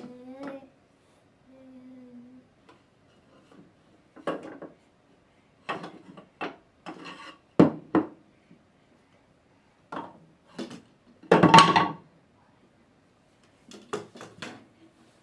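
A dust cloth rubbing and bumping against a lamp in short, irregular bursts, the loudest about eleven seconds in. There is a short hum about two seconds in.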